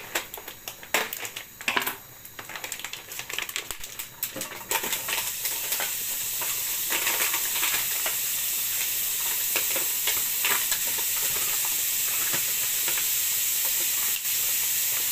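A plastic packet of diced bacon being cut open and handled, with short clicks and knocks. About five seconds in, the bacon goes into a hot buttered frying pan and a steady sizzle of frying starts and carries on.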